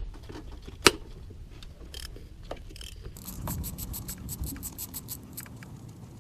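Ratchet wrench clicking rapidly, about six clicks a second, as the alternator's 14 mm upper mount bolt is worked loose. A single sharp knock of a tool on metal comes about a second in.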